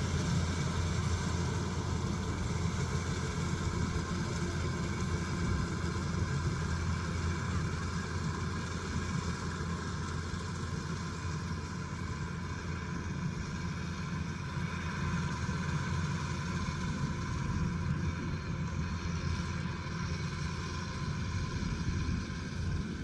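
Kubota DC-108X rice combine harvester running steadily, its diesel engine giving an even low drone with no change in speed.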